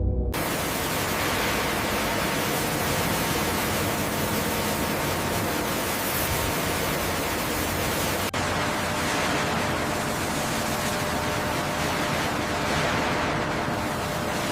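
Steady, even rushing noise that starts abruptly just after the start and breaks off for an instant about eight seconds in.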